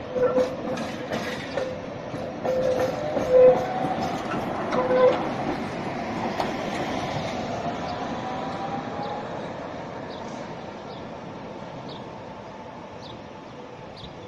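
Red articulated electric tram running past on street track: wheels clicking over rail joints, with a high steady squealing tone that cuts in and out over the first five seconds and a slowly rising whine. The sound then fades steadily as the tram moves away.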